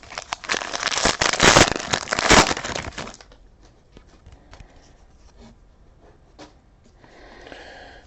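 Foil wrapper of a trading-card pack crinkling and tearing as it is ripped open, for about three seconds. Then quieter handling with a few light clicks as the cards come out.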